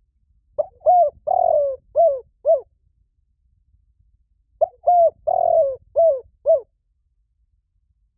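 Spotted dove cooing as a decoy call: two phrases about four seconds apart, each a run of about five notes with the longer third note in the middle.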